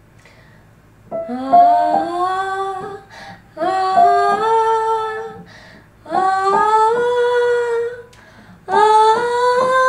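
A woman singing four short phrases with piano, each about two seconds long and pitched a step higher than the one before, with piano notes struck along with them.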